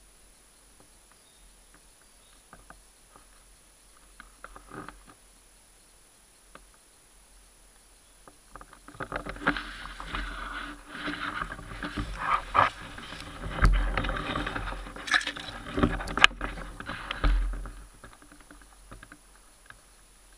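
Dry leaf litter and cloth rustling and crackling close by, with many sharp snaps and ticks, loud from about nine seconds in for about nine seconds, then settling back to a faint stillness broken by a few small clicks.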